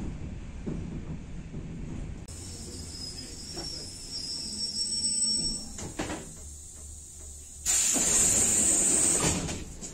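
ER2 electric multiple unit pulling into the platform with a low rumble, then a high steady hiss from about two seconds in and a clunk about six seconds in. Near the end its pneumatic sliding vestibule doors open with a loud hiss of air lasting about a second and a half.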